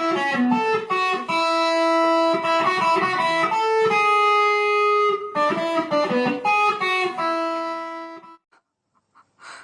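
Music: a plucked-string melody with held notes, which stops about eight seconds in.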